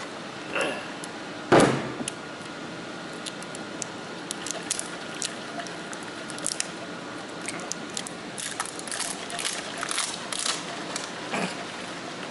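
Small irregular plastic clicks and scrapes as a folding knife works at the plastic cap of a Great Stuff spray-foam can. There is one sharper knock about a second and a half in.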